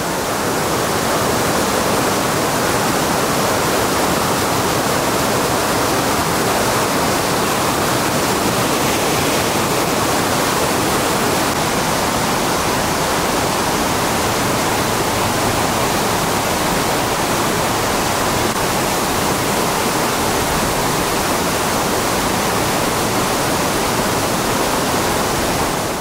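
Steady rush of Wahkeena Falls, an even hiss of falling water that fades out at the very end.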